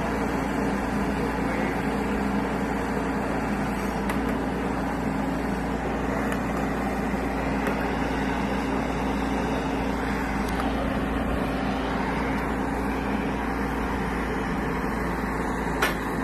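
Bobcat E10 mini excavator's diesel engine running steadily as it digs, with one sharp knock a little before the end.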